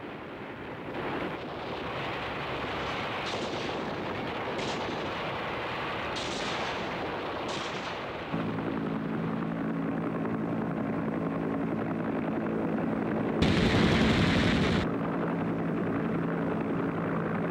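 Battle sounds: rifle and machine-gun fire, several sharp shots over a dense rumble. From about eight seconds in, a steady aircraft engine drone takes over, with a loud rushing blast for over a second a little after thirteen seconds.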